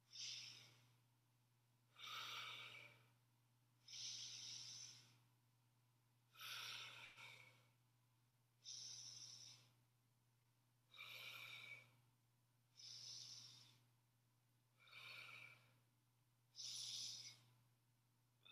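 A person breathing slowly and deeply, about nine audible breaths evenly paced roughly two seconds apart. This is the deliberate in-and-out breathing of a static hamstring stretch, sinking lower into the hip hinge on each exhale.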